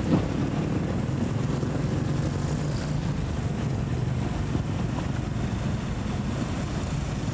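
Slow, congested road traffic: motor scooters and motorcycles passing close by at low speed, their engines running in a steady mixed hum.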